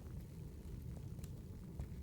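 A firewood fire crackling: scattered sharp pops and snaps over a low, steady rumble of the flames.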